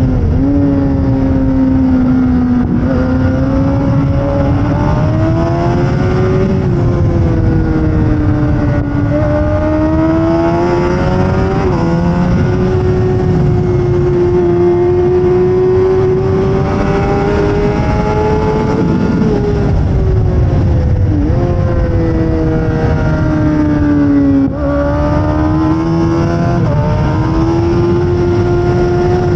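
2008 Suzuki GSX-R600's inline-four engine screaming at high revs under racing load. The pitch rises and falls with the throttle, drops sharply several times at gear changes, and runs over a heavy rush of wind.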